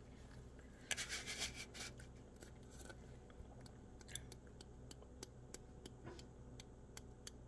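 Metal spice tin being handled: a brief rubbing scrape about a second in, then faint scattered light ticks as it is tipped and shaken.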